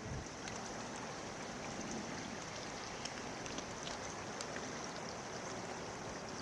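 Steady rush of flowing floodwater, with faint scattered ticks.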